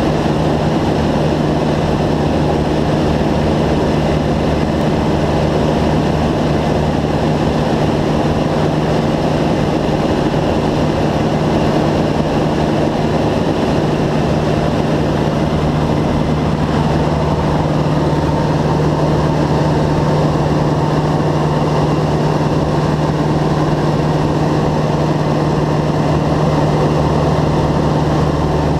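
Single-engine floatplane's engine and propeller running steadily in cruise flight, heard from inside the cabin as a constant low hum under a thick rush of noise.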